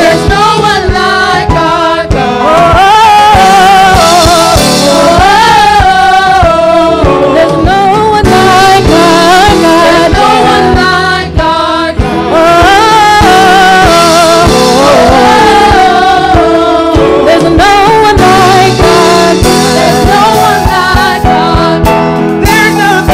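Gospel praise team singing together into microphones, long wavering sung notes over instrumental accompaniment with a steady beat.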